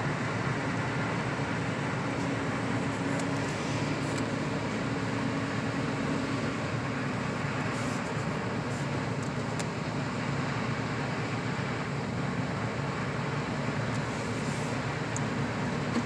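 Steady road noise inside a moving car's cabin: tyres running on a snow-covered highway over a low engine hum.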